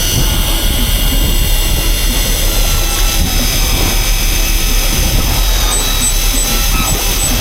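Electric fishing reels winding in line under load with a thin, steady high whine, over the steady low rumble of the boat's engine and wind.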